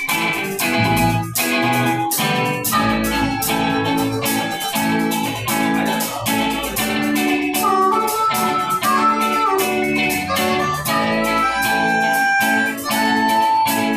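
Rock band playing live: electric guitars over a steady drum beat, amplified through the stage rig.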